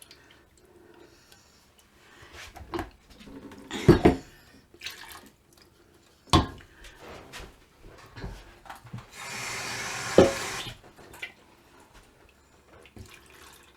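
Thick blended soup being scraped and knocked out of a Vitamix blender container into a pot: scattered scrapes and clicks with a few sharp knocks, the loudest about four and six seconds in. About nine seconds in there is a steady rush of water, like a tap, lasting about a second and a half.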